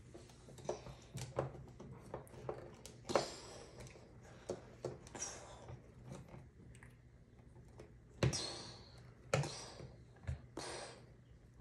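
Faint handling noises of trading cards at a table: scattered light taps and short brushing rustles, the loudest about three seconds in and several more near the end.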